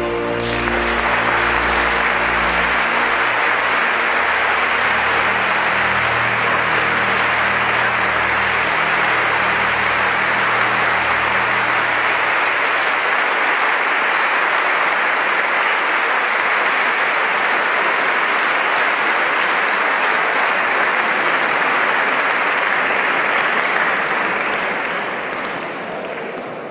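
Crowd applauding steadily, a dense even clapping, over the last low notes of the show's music, which die away about twelve seconds in. The applause thins out near the end.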